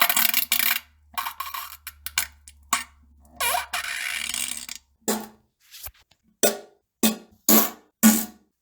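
A rapid string of fart sounds edited one after another with brief silences between. They are longer and airier in the first half and short and more pitched in the second half, coming about two a second.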